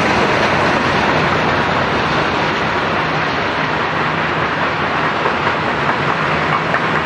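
Freight train cars rolling past on the mainline: a steady rumble of steel wheels on rail.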